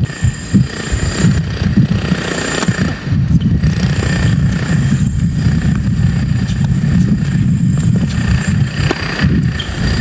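Strong wind buffeting the camera microphone: a loud, gusting low rumble that rises and falls unevenly and covers most other sound.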